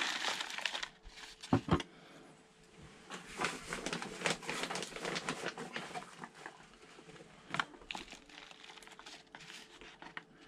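Loose potting compost poured into a thin plastic seedling cell tray: a crackling, rustling patter of soil, with a few light knocks from the plastic tray being handled.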